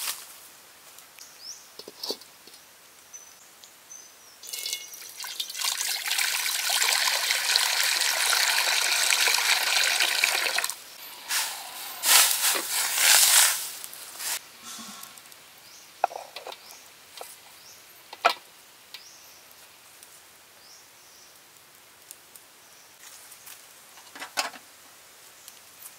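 Water pouring steadily into a steel wok for about six seconds, then a burst of splashing. After that, a few scattered metal clinks and knocks as a bowl is set in the wok and a domed cover is put over it.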